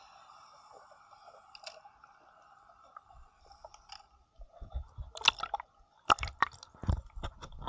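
Water sloshing around a waterproof action camera, with irregular knocks and bumps on its body starting about three seconds in, over a faint steady hum.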